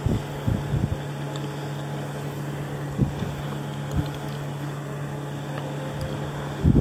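A steady low hum, with a few short soft low thumps over it.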